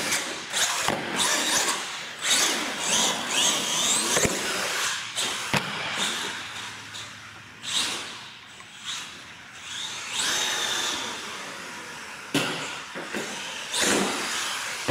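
Radio-controlled monster truck's motor whining as it revs up and down, rising and falling in pitch, with several sharp knocks as it lands and tumbles on the concrete floor and ramps.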